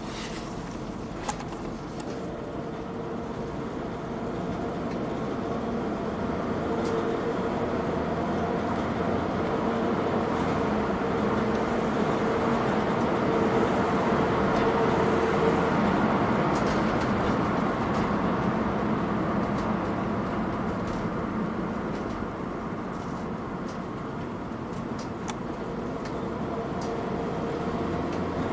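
2014 Ford Transit Connect's 1.6-litre EcoBoost four-cylinder engine running with road noise as the van drives, growing gradually louder toward the middle, easing off, then building again near the end.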